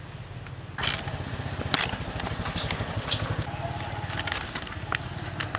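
Crisp crackles and clicks of a green banana leaf being handled and unrolled by hand, the loudest about one and two seconds in. Under them runs a steady, low, pulsing engine-like rumble.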